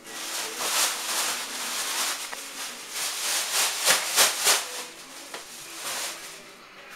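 Loud, uneven rustling and rubbing noise close to the microphone, with a few sharper clicks and clatters about four seconds in as a metal doorknob is gripped and turned and a door opened.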